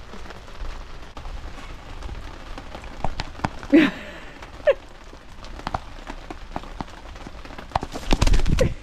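Hens pecking grated cheese from a plastic bowl, beaks tapping sharply on the plastic, with two short clucks a few seconds in, over steady rain. Near the end a hen flaps her wings in a brief, loud flurry.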